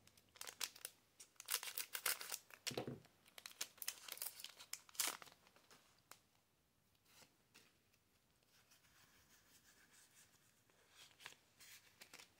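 Foil wrapper of a Pokémon booster pack crinkling and tearing with sharp crackles as it is opened by hand. The crackling stops about five seconds in, leaving only faint clicks of cards being handled.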